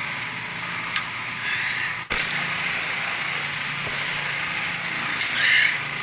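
Steady mechanical hum with a constant hiss from running machinery, broken by a brief dropout about two seconds in.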